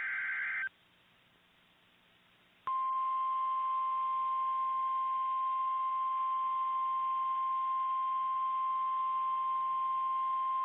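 The end of an EAS digital header burst, a warbling two-pitch data screech, stops within the first second. After about two seconds of silence, the NOAA Weather Radio 1050 Hz warning alert tone starts, a single steady electronic tone that holds without a break.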